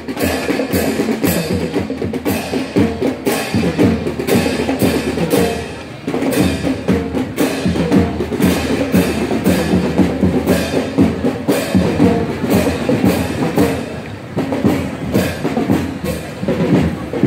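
Children's marching drum band playing: melodicas carry a tune over a steady beat of drums and percussion hits, with bell-lyre notes. The music drops briefly about six seconds in, then picks up again.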